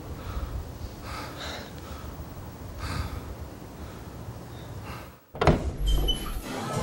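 Low outdoor rumble with a few breaths, then a brief dead gap and a sudden loud hit as a low droning music sting begins.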